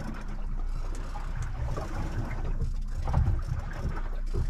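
Small boat's motor running slowly in reverse: an uneven low rumble over a steady low hum, with wind buffeting the microphone.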